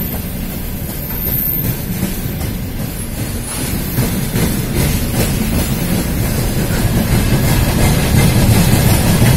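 Freight train wagons rolling past close by: a steady rumble of wheels on rail with repeated clacks as the wheels cross rail joints, growing louder near the end.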